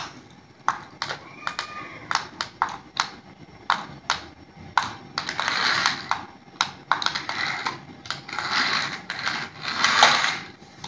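Small electric motors of toy remote-control cars whirring in spells, their plastic wheels spinning on a concrete floor as two cars push against each other, among many sharp plastic clicks and knocks.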